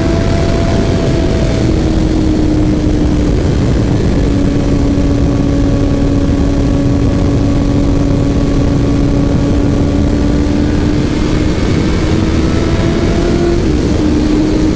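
Kawasaki Ninja ZX-10R's inline-four engine running at steady high revs under loud rushing wind noise. The pitch drops slightly about two seconds in, then holds, with a small step down near the end.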